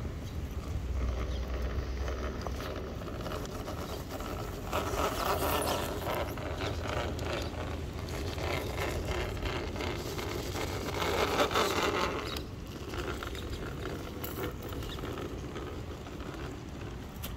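Traxxas TRX-4 scale crawler's electric motor and geared drivetrain whirring as it creeps over rocks, with tyres scraping and clicking on stone. It grows louder twice, about five seconds in and again around eleven seconds in, as it works up over the rocks.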